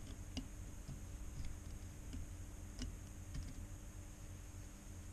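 A handful of faint, irregular clicks of a metal needle tip ticking against a stripped, stuck iPhone bottom screw and the phone's frame as it is worked at the screw, over a steady low background hum.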